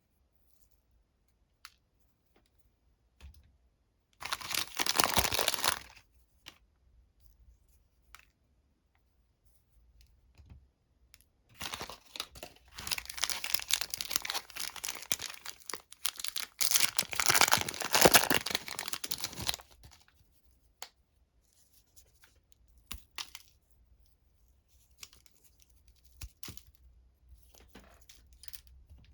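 Plastic chocolate-bar wrapper being torn open and crinkled: a short tear about four seconds in, then a longer stretch of tearing and crinkling starting about twelve seconds in and lasting about eight seconds, with scattered small clicks and rustles between.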